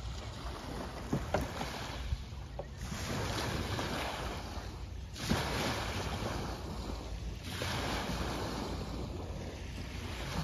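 Water washing in three slow swells of rushing noise over a low steady rumble, with wind on the microphone.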